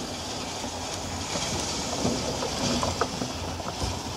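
Wooden roof framework of a sliding-roof observatory rolling on small wheels along metal flashing on the wall beam: a steady rolling rumble with scattered clicks and knocks, loudest in the middle.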